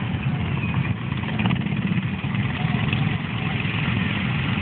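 ATV engines running at low revs, a steady low sound without sharp changes.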